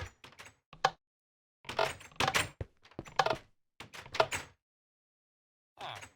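Irregular clicks, knocks and clunks in short clusters, separated by moments of dead silence.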